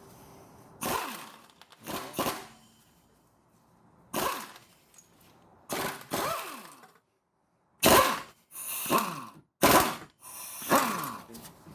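Power wrench driving an M10 triple-square bit, run in about eight short bursts, each falling in pitch as it winds down. It is loosening the bolts that hold the Audi A4's inner CV joint to the transmission flange.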